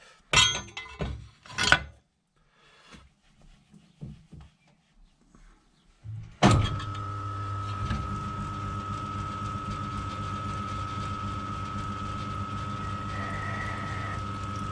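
A few loud mechanical clunks and knocks, then about six seconds in a small metal lathe is switched on with a sharp thump and its motor runs steadily with a high whine.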